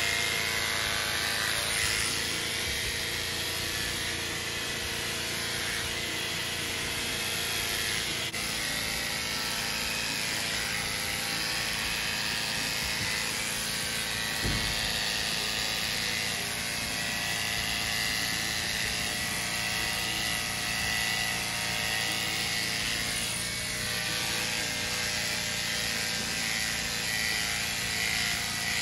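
Corded electric horse clippers running steadily, their motor buzzing as the blades cut through a horse's coat. One dull thump about halfway through.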